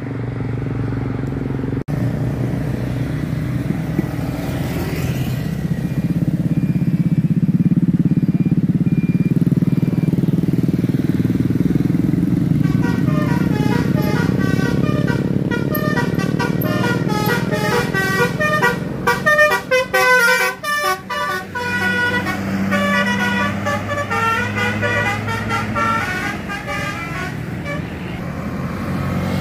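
Large tour bus engine running as it passes, and from about twelve seconds in a 'telolet basuri' multi-tone musical air horn playing a quick melody of short notes until near the end.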